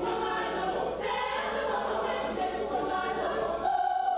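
A mixed choir singing sustained chords in harmony, with a brighter held note standing out near the end.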